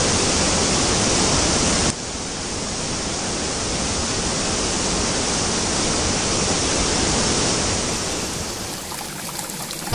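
Steady rush of a rocky stream, a dense hiss of flowing water, which drops suddenly in level about two seconds in.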